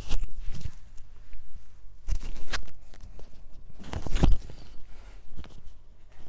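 Handling noise: rustling with knocks and three louder thumps, near the start, at about two seconds and at about four seconds.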